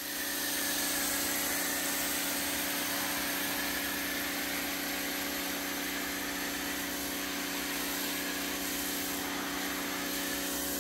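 Giraffe Tools electric pressure washer running steadily, its motor and pump humming, with the hiss of an MJJC Foam Cannon Pro spraying foam.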